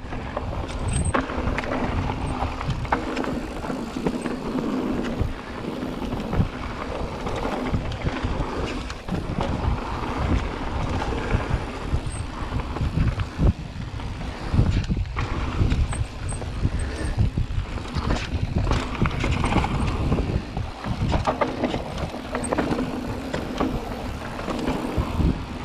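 Mountain bike riding down a dirt singletrack: tyres rolling over the dirt, with frequent knocks and rattles as the bike goes over bumps, and wind rushing over the microphone.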